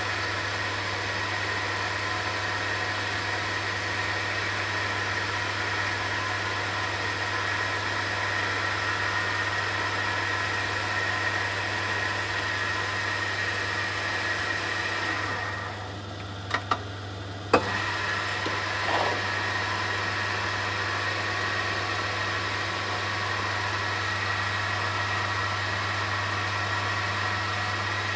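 Myford Super 7 lathe running steadily with a small bar spinning in its collet chuck during a light finishing cut, a low hum under a steady whine. About sixteen seconds in the sound dips briefly and a few sharp clicks are heard, the loudest just before it picks up again.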